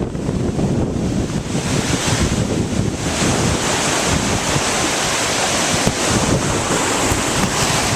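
Hurricane-force wind buffeting the microphone over rough lake waves, a continuous rushing noise with a low rumble. The hiss of the wind grows stronger about three seconds in.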